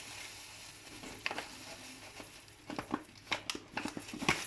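Dry oatmeal being poured into a cooking pot: a soft hiss with scattered light clicks and rustles, thicker in the second half.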